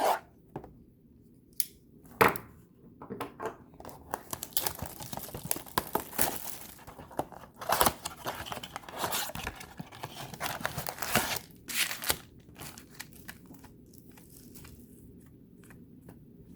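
A trading-card blaster box being torn open by hand, its wrapper crinkling and its cardboard ripping in irregular bursts, with a sharp crack about 2 seconds in.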